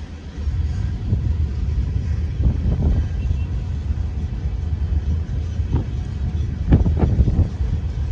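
Freight train of gondola cars rolling past: a steady low rumble of wheels on rail, with several short louder knocks, the heaviest about seven seconds in.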